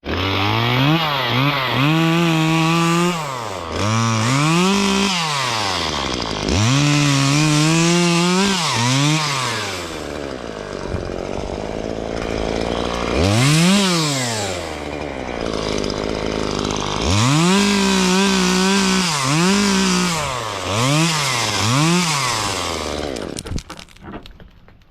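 Two-stroke chainsaw cutting branches in repeated bursts, its engine pitch climbing, holding briefly and dropping back with each squeeze and release of the throttle; it stops near the end.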